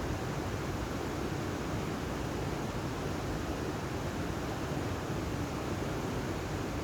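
Steady, even rushing noise with no distinct calls or other events.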